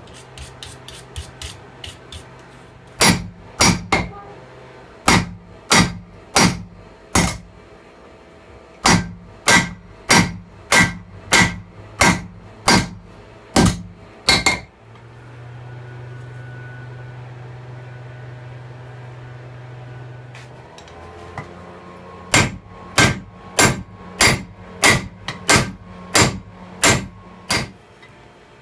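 Hand hammer forging hot railroad-track steel on a railroad-track anvil. A few light quick taps come first, then runs of heavy blows about two a second, broken by a pause of several seconds with a steady low hum, then another run of blows.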